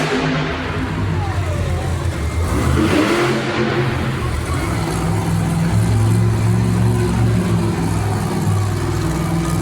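Monster truck engines running loud and revving, their pitch rising and falling.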